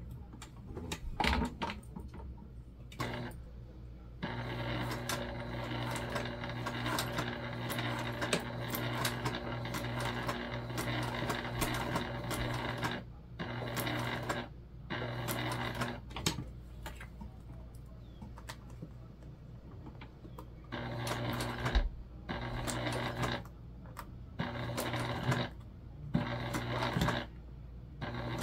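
Electric sewing machine top-stitching through vinyl. It starts about four seconds in and runs steadily for about nine seconds, then stops and starts several times in shorter runs as the work is turned. A few clicks come before the first run.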